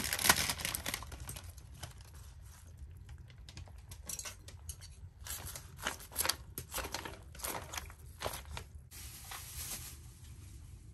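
Irregular rustling and crinkling of something being handled close by, in uneven bursts, loudest at the very start.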